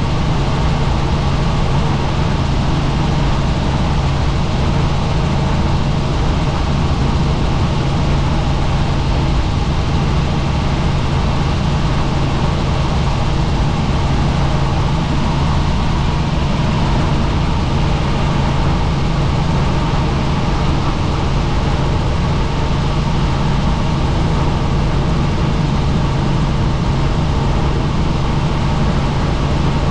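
Helicopter in flight: a loud, steady engine and rotor drone with a strong low tone under a broad hiss, unchanging throughout.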